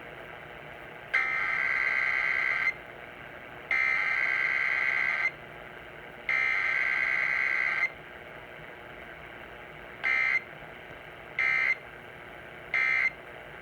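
Emergency Alert System SAME digital data bursts from a broadcast weekly test: three long header bursts of about a second and a half each, a second apart, then three short end-of-message bursts near the end.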